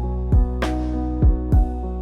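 Background music: sustained chords over a deep drum beat, with a brighter cymbal-like hit early in the bar.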